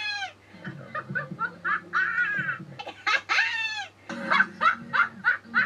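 A girl laughing loudly in repeated bursts, with a high squeal a little past the middle.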